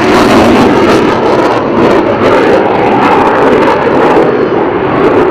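Loud, steady jet engine noise from U.S. Air Force Thunderbirds F-16 fighter jets in flight.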